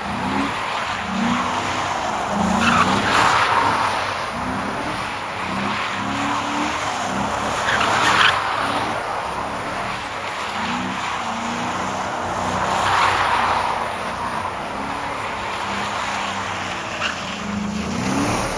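Ford Crown Victoria Police Interceptor's 4.6-litre V8 revving up and down as the rear tyres spin and slide on wet pavement through continuous donuts. Tyre skidding swells louder every few seconds.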